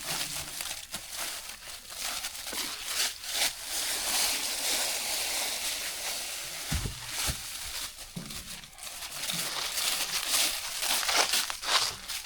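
Branches and dry leaves rustling and crackling as brush is pulled and moved by hand, with a dull thump about seven seconds in.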